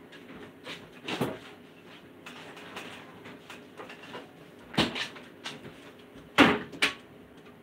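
Kitchen handling noises: a few scattered knocks and bumps, like cupboard doors or dishes being moved, with two sharper knocks close together about six and a half seconds in.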